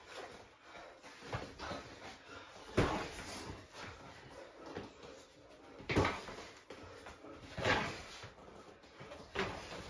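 Boxing gloves landing punches during sparring: a few short, sharp impacts, the loudest about three seconds in, at six seconds and near eight seconds. Softer foot shuffles on the floor come in between.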